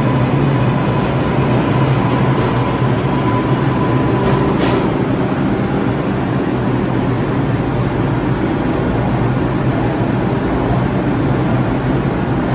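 R142 subway train standing in the station with its doors open, its equipment humming steadily. A thin high tone stops, with a sharp click, about four and a half seconds in.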